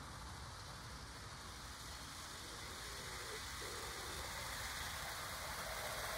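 OO gauge model train running along garden track: a steady rushing running noise that grows slowly louder as it approaches.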